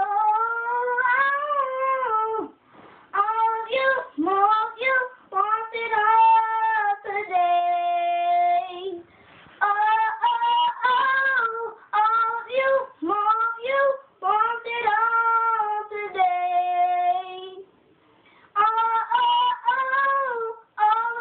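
A young girl singing a gospel song unaccompanied, in phrases with melodic runs and near-silent breaths between them. She holds two long steady notes, about a third of the way in and again about three quarters in, and pauses briefly near the end.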